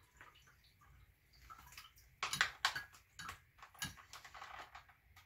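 Soft plastic squeeze pouch of a Sawyer Mini water filter squeezed by hand as it runs empty: irregular faint crinkling and crackling of the bag, with filtered water trickling into a glass.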